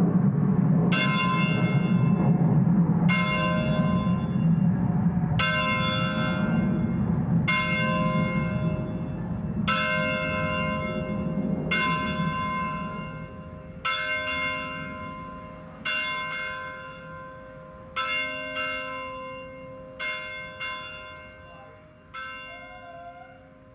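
The C4 (Do 4) bronze church bell cast by Angelo Bianchi of Varese in 1928, swinging full circle on its wheel and striking about once every two seconds, each stroke ringing on. The strokes grow fainter through the second half, with a few doubled strikes near the end, as the ringing dies down.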